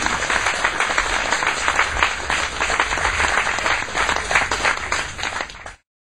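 Audience applauding, many hands clapping together in a dense, even patter. The applause cuts off abruptly near the end.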